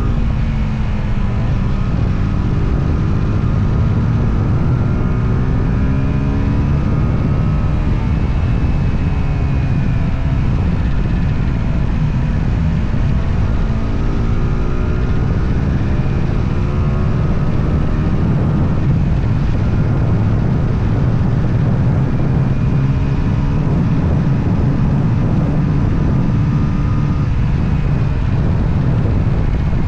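Motorcycle engine running under way, its pitch rising and falling again and again as it accelerates, shifts gear and eases off, over steady wind and road rumble.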